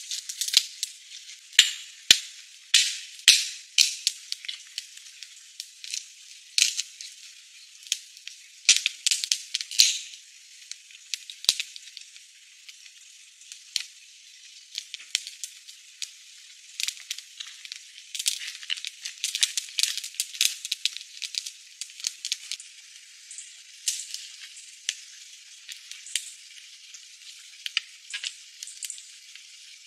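Wood campfire crackling and popping: irregular sharp snaps, loudest and most spaced out in the first ten seconds, then lighter and more frequent.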